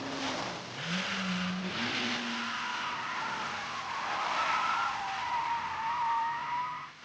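Racing cars on a wet downhill road. An engine note climbs and steps up twice in the first two seconds as it shifts up, then a long wavering tyre squeal runs through the second half and cuts off near the end, over a steady hiss.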